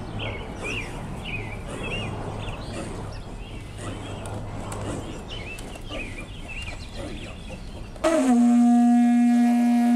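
Birds chirp faintly in the background. About eight seconds in, a plastic vuvuzela sounds one loud, steady, single-pitched blast that holds to the end.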